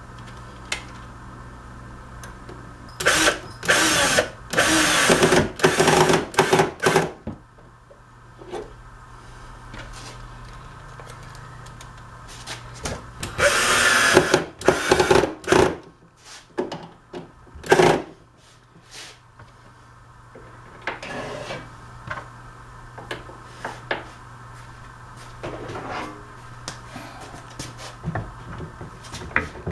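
Handheld cordless drill run into wood in two clusters of short bursts, a few seconds in and again about halfway through, followed by scattered knocks, with a steady hum behind.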